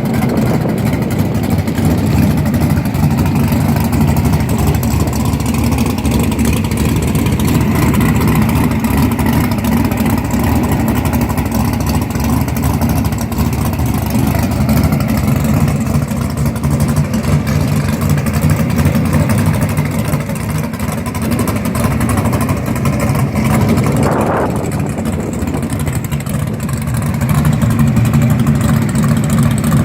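A car engine running steadily, its hum easing slightly midway and picking up again near the end. A brief rising tone cuts through about two-thirds of the way in.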